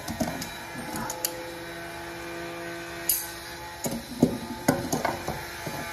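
Smooth-jawed Knipex pliers wrench clicking and knocking against a brass faucet fitting while a faucet stem nut is tightened under a sink: a few scattered knocks, then a quick cluster of louder clicks near the end.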